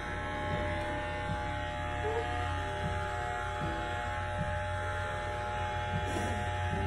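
Electric hair clippers buzzing steadily as they cut hair close to the scalp.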